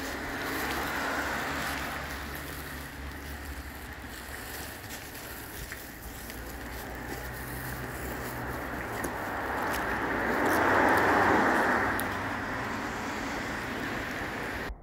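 Steady outdoor rushing noise that swells to its loudest about ten seconds in, then eases, with a few faint clicks.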